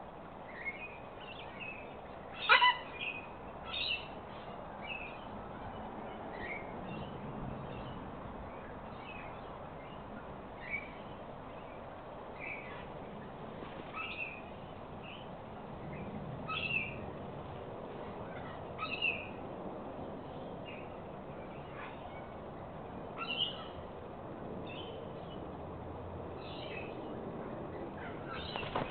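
Birds calling: many short chirps and squawks, scattered throughout, over a steady background hum, with one louder call about two and a half seconds in.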